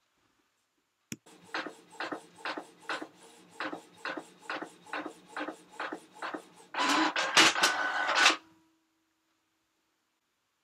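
Printer printing: a click, then an even rhythm of mechanical strokes about two a second, then a louder, steadier mechanical run lasting under two seconds with a steady whine in it.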